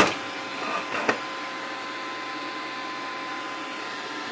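MakerGear M2 3D printer's cooling fans running with a steady whir, heated and ready to print. A sharp knock at the start and a click about a second in come from hands working filament into the extruder.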